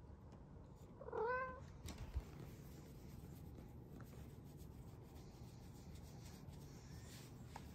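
A domestic cat gives one short meow about a second in, followed a second later by a soft thump.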